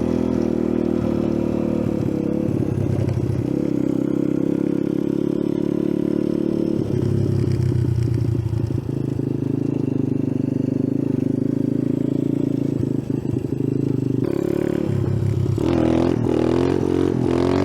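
Icebear Champion 125cc mini bike's single-cylinder four-stroke engine running hard while riding off-road, the throttle opening and closing. Near the end the engine revs up and down in quick swings.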